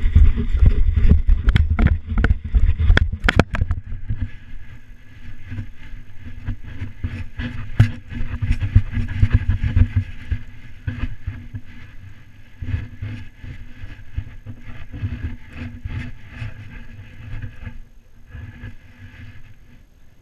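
Wind and jostling rumble on a GoPro camera strapped to a running Irish terrier, with repeated sharp knocks and rattles from the camera mount. Loudest in the first few seconds, and quieter near the end as the dog slows on grass.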